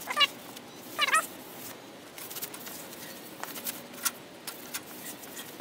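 A cloth rag squeaking on the oiled steel of a crosscut saw blade as it is wiped back and forth: two short, wavering squeaks at the start and about a second in, then fainter scratchy rubbing.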